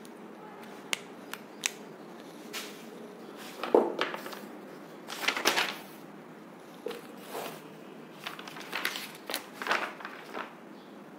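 Scattered light clicks and short rustles in a quiet room, with a louder knock about four seconds in: a person moving about and handling things.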